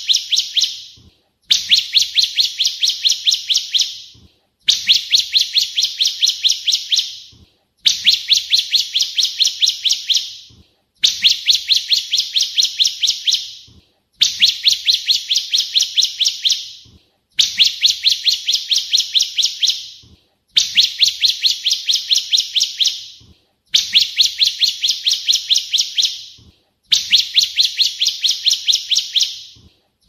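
Ciblek kristal (bar-winged prinia) song, looped as a training recording: a fast phrase of about a dozen sharp, high chirps, each phrase fading at its end, repeated identically about every three seconds.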